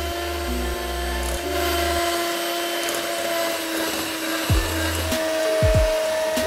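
Electric hand mixer running at a steady speed with a constant motor whine, its beaters whipping eggs and sugar in a glass bowl.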